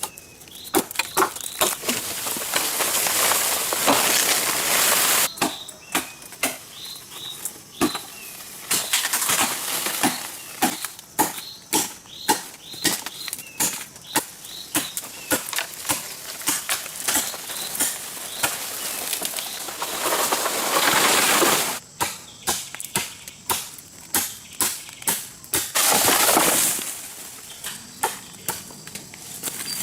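Rice being harvested by hand: crisp snaps of rice stalks being cut, roughly two a second, broken by longer bursts of rustling straw as the cut stalks are gathered.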